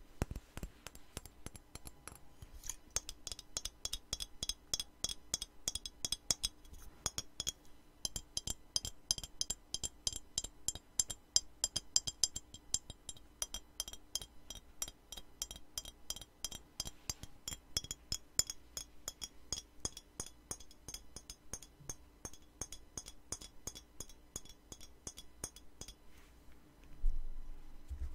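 Fingers tapping fast on glass bottles, a quick run of small clicks that makes the glass ring with a bright, high chime. Near the end the chiming stops and a louder knock is heard.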